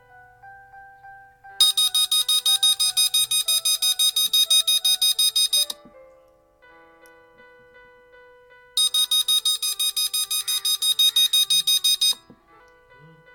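Arduino-driven beeper of an infrared-beam burglar alarm going off in rapid, even pulses, several beeps a second. It sounds in two bursts of about four and three and a half seconds, the alarm being set off during a test. Soft background music plays underneath.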